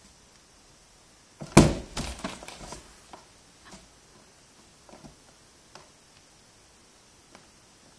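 A cat moving inside a box, knocking against it: one loud thump about a second and a half in, a quick run of knocks and rattles after it, then a few faint single taps.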